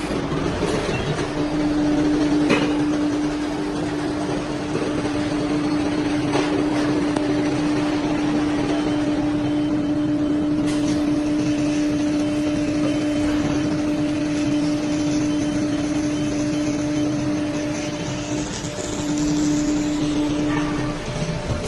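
A CNC four-side cutting saw for wooden doors running, with a steady hum that sets in about a second in, over a constant machine noise. The hum breaks off briefly twice near the end.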